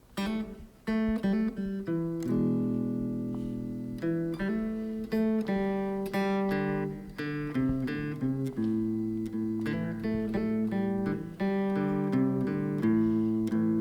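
Electric guitar playing a four-bar blues intro, picked notes over a sustained low bass line.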